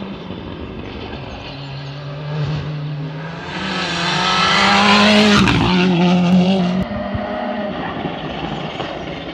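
Rally car engine at hard throttle as the car approaches, the engine note climbing and growing louder until it passes close about five and a half seconds in with a drop in pitch. The sound cuts down sharply about a second later, and another engine carries on more quietly.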